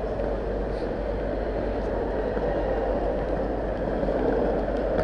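Steady outdoor street background noise, an even rushing sound with no distinct events.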